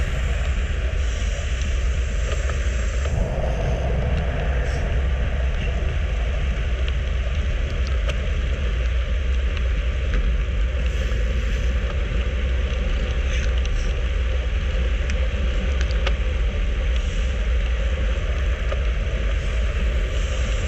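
Steady wind rush buffeting a bike-mounted camera's microphone, with tyre hum, as a road bike rolls at about 35 km/h.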